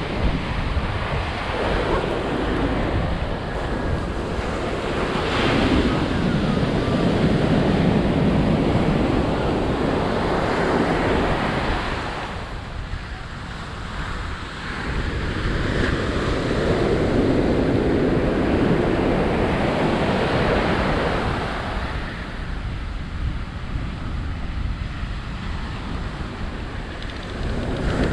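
Ocean surf breaking on the beach, a steady wash that swells and eases in slow surges about every ten seconds, with wind rumbling on the microphone.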